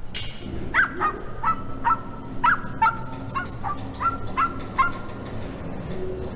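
An animal's honking calls: about a dozen short honks in quick succession, some three a second, which stop about five seconds in.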